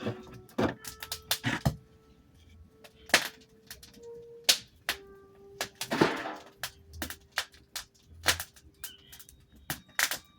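Wood fire burning in a washing-machine-drum fire pit, crackling with irregular sharp pops, several of them loud.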